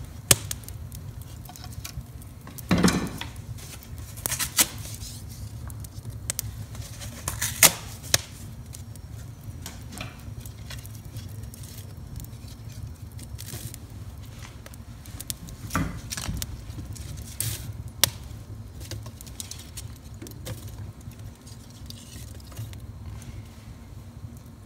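Kindling fire in a wood stove crackling and popping, with scattered knocks and clatters of split kindling sticks being moved and restacked by hand. Underneath runs a steady low rumble.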